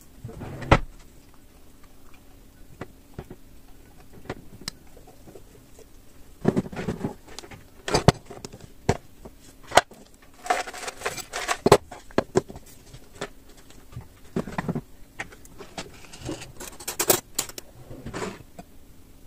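Irregular clicks, knocks and short clattering of small objects being handled, with several louder bursts of clatter.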